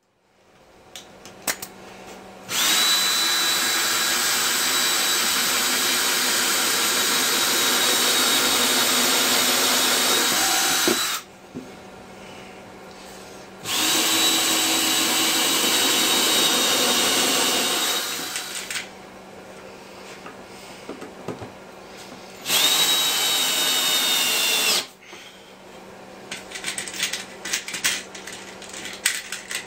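A handheld power tool running at a steady high whine in three long runs, the first about eight seconds, the second about five and the last about two, with small clicks and clatter of handling between them.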